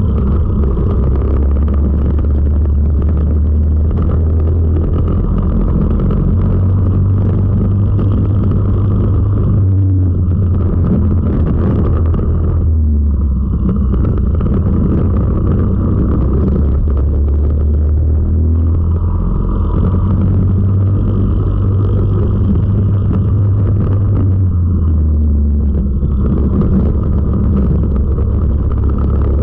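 Four-stroke racing kart engine heard from onboard at race pace, a loud low drone whose pitch steps down and back up several times as the kart slows for corners and accelerates out.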